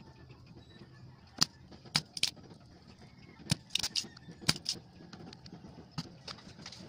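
A run of about nine sharp, irregular clicks and clacks from hand tools working on a circuit board while old tact switches are being desoldered.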